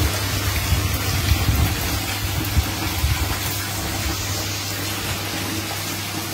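Chicken pieces deep-frying in hot oil in a kadai, a steady loud sizzle with small crackles as they are stirred. A steady low hum runs underneath.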